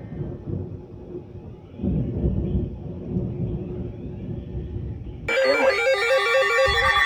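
Low, muffled rumbling. About five seconds in, loud electronic music with quick, stepping, buzzy notes in a repeating pattern starts abruptly.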